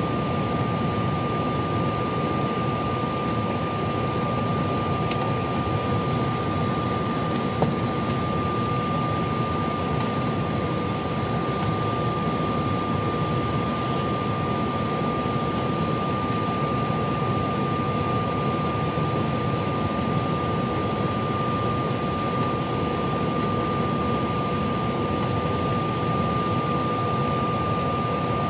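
Steady cabin noise inside a Mitsubishi CRJ-900 regional jet on the ground: rushing ventilation air and a low hum under a constant high whine, with a single click about seven and a half seconds in.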